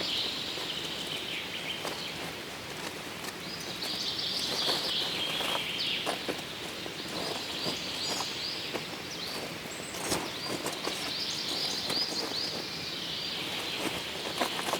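Songbird singing in the woods: short phrases of quick high chirps, repeated every few seconds. Scattered light clicks and rustles run underneath.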